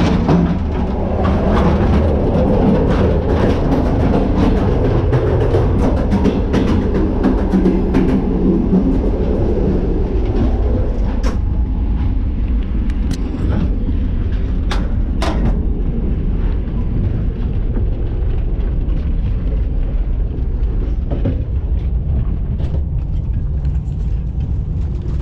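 Background music laid over the steady low rumble of a moving train, with scattered clicks and knocks.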